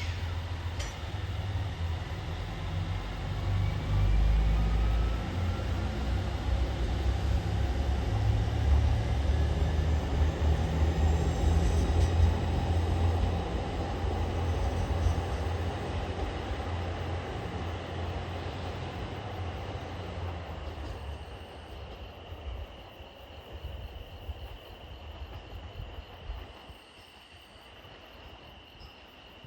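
KiHa 283 series diesel express train pulling away under power, its diesel engines throbbing low with a faint rising whine, then fading into the distance over the last several seconds. A steady insect chirr is left near the end.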